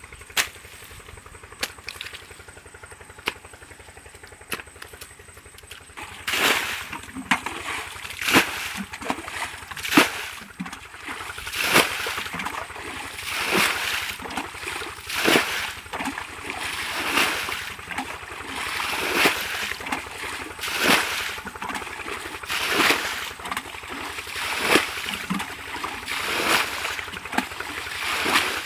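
Water splashing and sloshing in a steady rhythm, one splash about every two seconds, starting about six seconds in; before that only a few faint clicks.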